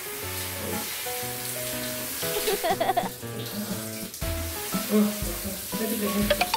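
Water hissing steadily from a handheld shower head as it sprays onto a cat's fur, over light background music.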